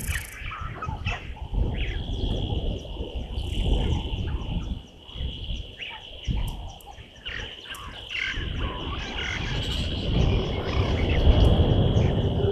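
Outdoor bush ambience: scattered short bird chirps over a steady high-pitched drone and a low rumble.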